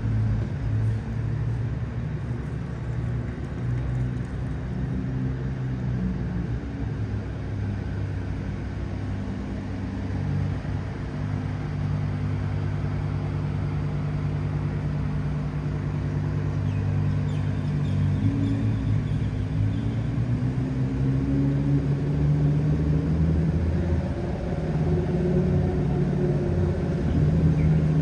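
Vehicle engines running nearby, a steady low hum of idling traffic, with pitch rising about eighteen seconds in and again near the end as a vehicle speeds up.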